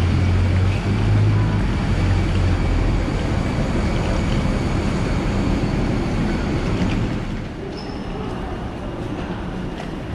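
Steady low engine rumble with faint rattles and clicks. It eases and gets quieter about seven and a half seconds in.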